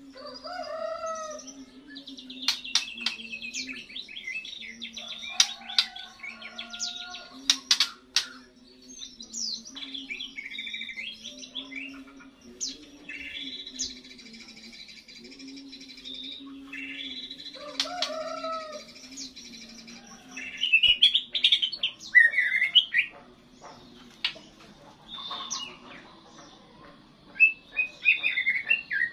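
Young white-rumped shama (murai batu) singing its first song after the moult: varied phrases of whistles, swooping notes and chirps, broken by short pauses. The loudest phrases come about two-thirds of the way through.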